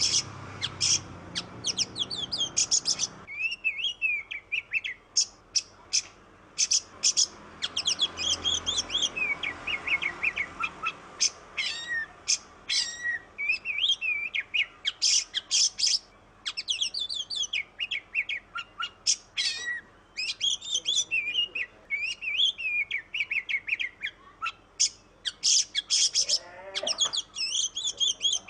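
Oriental magpie-robin (kacer) singing a long, varied song of whistled notes, pitch sweeps and fast runs of sharp chattering notes, with only short pauses.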